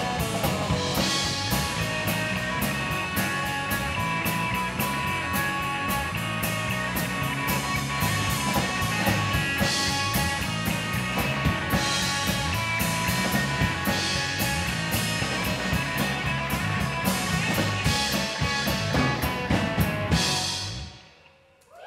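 Live rock band, electric guitars and drum kit with cymbals, playing an instrumental stretch at the end of a song. The music stops a little over 20 seconds in, dropping almost to silence.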